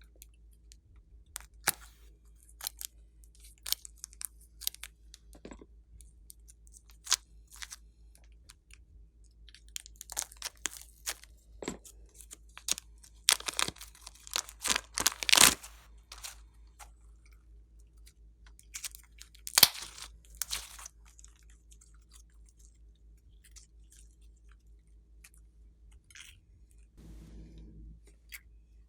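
Slime being pressed and worked by hand, giving scattered sharp clicks and crackles with a dense run of them in the middle.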